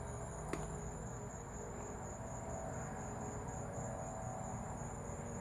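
Steady high-pitched insect chorus over a low, steady background rumble, with a single sharp click about half a second in.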